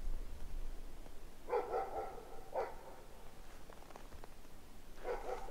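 A dog barking in three short bouts: about a second and a half in, again a second later, and once more near the end.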